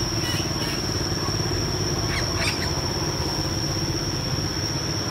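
Outdoor background noise: a steady low rumble under a constant thin high tone, with a couple of faint short chirps about two seconds in.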